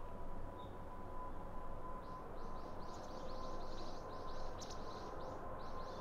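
Twin jet engines of a Boeing 777-200ER at takeoff thrust, climbing out: a steady rumble with a steady whine. From about two seconds in, a bird trills a rapid run of high chirps over it, about five a second.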